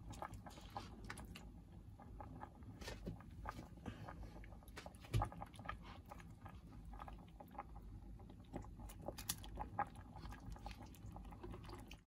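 Pot of sinigang broth with salmon heads simmering on the stove: small, irregular pops and clicks over a low steady hum, with one louder knock about five seconds in.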